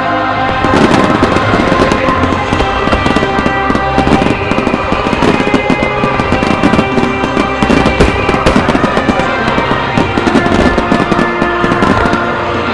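Music starmine fireworks: a rapid, dense volley of shell bursts and crackles over loud music, the bursts thickening about a second in.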